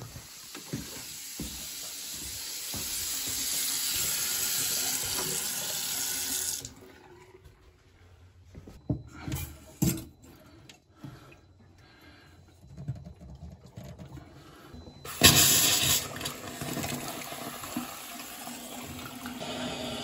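Sink faucet running full, flushing the water lines after the supply is turned back on, shut off abruptly about a third of the way in. A few knocks follow, then water runs again for the last few seconds.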